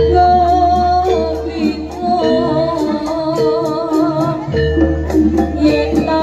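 Live East Javanese jaranan music: a wavering melody line over a steadily repeated tuned metallic note and regular bright clashing strokes, with a deep low tone sounding twice, at the start and about four and a half seconds in.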